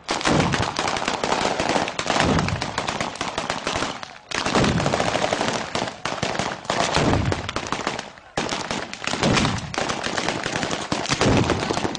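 Strings of firecrackers going off in a dense, rapid crackle of bangs, with heavier booms every couple of seconds and two brief lulls, about four and eight seconds in.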